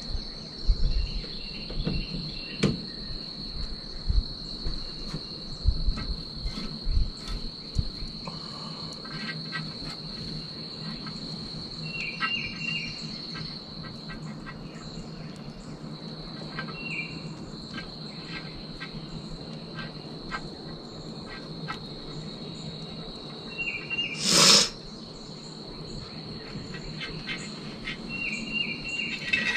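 Steady, high-pitched drone of insects, with a few short trills and light knocks and clatters from handling meat on a grill grate. A brief loud noise stands out near the end.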